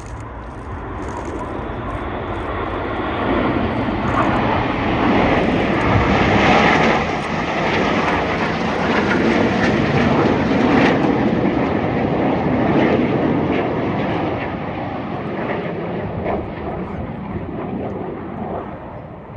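BAE Hawk T1 jets of an aerobatic formation team flying past. The jet noise builds over the first few seconds, stays loud through the middle and fades near the end.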